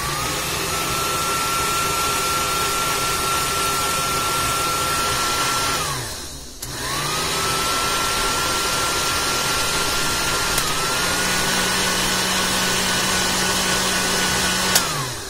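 Multi-speed push-button blender motor running with a steady high whine. About six seconds in it winds down to a stop and is started again. About ten seconds in a button click shifts it up to a slightly higher speed, and near the end it is switched off and spins down.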